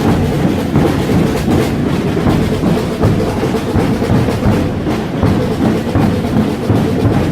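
A large group of drums, snare-type drums and bass drums, beaten together in a dense, continuous rhythm, the strokes running into one another like a rolling clatter.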